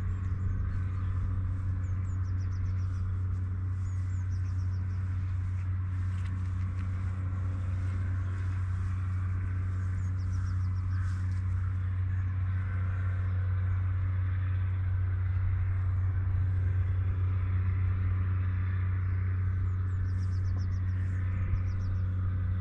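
Steady low outdoor rumble with no clear source. Faint high trills come through about two seconds in and again near the end.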